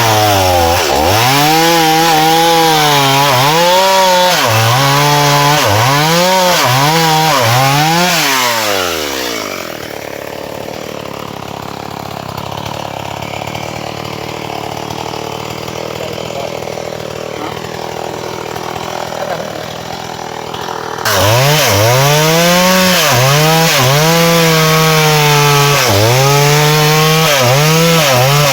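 Chainsaw cutting into a dry fallen log, its engine revving up and down again and again under load. About a third of the way in it drops away to a quieter rushing noise, then comes back abruptly and revs again before winding down at the end.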